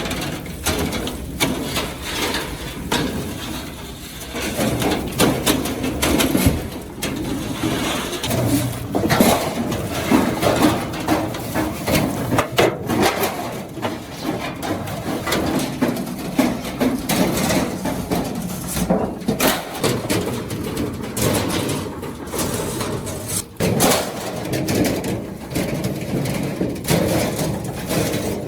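Repeated hammer blows and banging on sheet metal, irregular and almost continuous, over a constant workshop noise.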